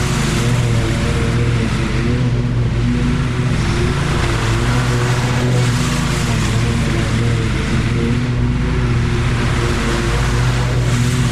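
Lawn mower engine running steadily.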